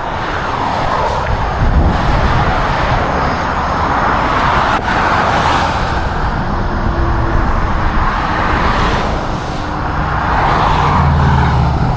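Vehicle on the move: steady road and engine noise that swells and eases, with a low engine hum growing stronger near the end.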